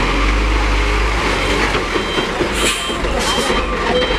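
Hino Ranger FL 260 JW truck's six-cylinder diesel engine running steadily under load as the laden truck creeps past. A few short hisses of air sound about two-thirds of the way through.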